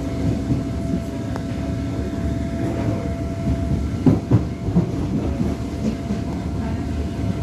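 A DART electric commuter train running, heard from inside the carriage: a steady rumble of wheels on rail with a thin steady whine over it. Two sharp wheel knocks come close together about four seconds in.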